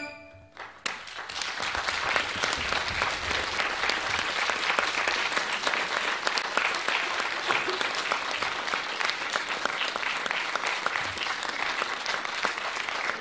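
A theatre audience bursts into applause about a second in, just as the music stops, then keeps clapping steadily.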